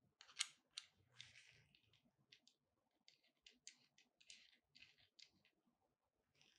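Faint handling sounds of a Yunteng tripod's plastic phone clamp and mount being fitted together by gloved hands: scattered small clicks and short rustles, the sharpest click about half a second in.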